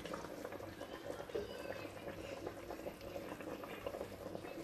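Pot of goat meat in broth boiling, bubbling steadily, with a wooden spoon stirring through the meat.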